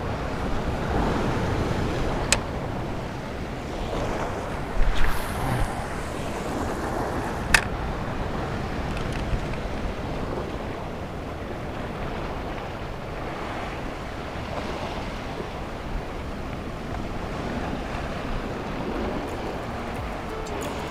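Sea waves washing against shoreline rocks, with wind on the microphone. Two sharp clicks come about five seconds apart.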